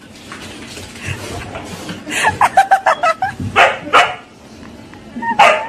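Siberian husky barking and yipping: a quick run of short yips about two seconds in, then a few louder single barks.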